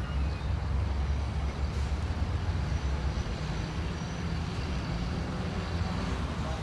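Steady low rumble of road traffic with general city street noise.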